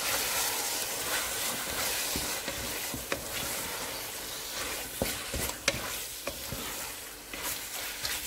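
Chicken masala with yogurt sizzling in a metal pressure-cooker pot as a wooden spatula stirs it, with a steady hiss and a few short scrapes and knocks of the spatula against the pot.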